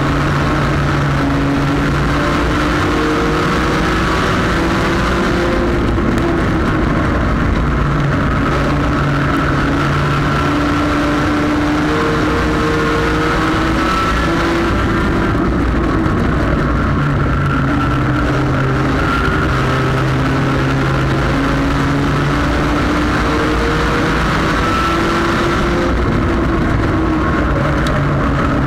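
Front-wheel-drive sport compact race car's engine heard from inside its own cockpit at racing speed. The engine note rises and falls as the car accelerates and lifts off, over steady wind and road noise.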